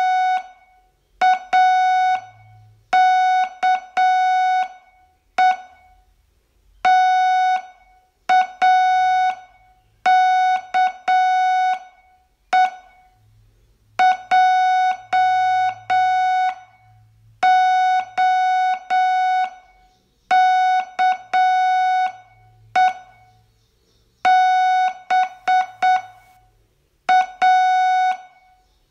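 Morse code as a steady beeping tone, keyed on and off in dots and dashes that form letters and words, with short pauses between them. These are the words of a Morse receiving test, sent for copying by ear.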